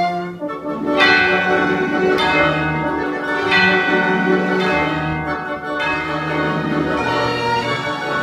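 Tubular bells (orchestral chimes) struck again and again, about one stroke every second and a quarter, each note ringing on over bowed strings.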